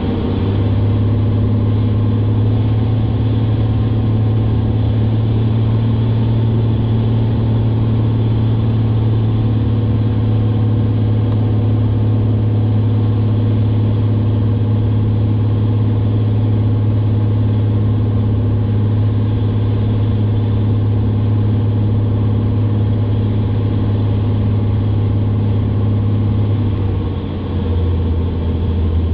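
Piston engine and propeller of a single-engine light airplane droning steadily, heard from inside the cockpit. About two seconds before the end the tone steps down lower as power is pulled back for landing.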